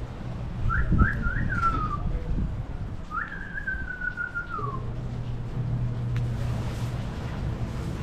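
Someone whistling in short high chirps, three quick ones and then one longer note that slides downward, over a low steady hum.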